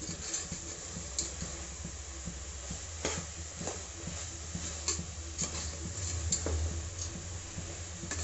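A ladle stirring a thick chickpea masala in a pressure cooker pot, with irregular scrapes and light knocks against the pot over a steady sizzle of frying.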